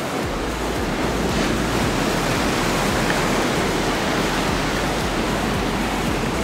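Ocean surf washing onto a sandy beach and against rocks: a steady rushing noise.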